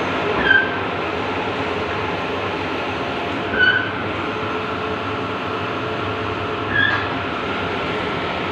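Large-format outdoor banner printer running: a steady machine hum, with a short high-pitched chirp coming about every three seconds, three times in all.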